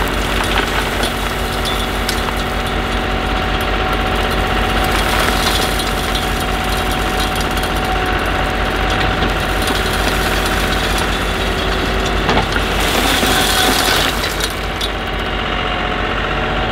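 John Deere utility tractor's diesel engine running steadily as its front-end loader bucket tips gravel into a Can-Am side-by-side's cargo bed, the rocks rattling as they pour.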